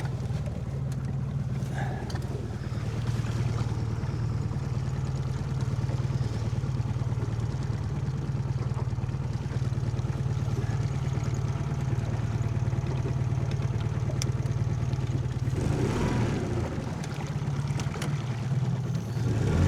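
A 15 hp four-stroke outboard motor running with a steady drone.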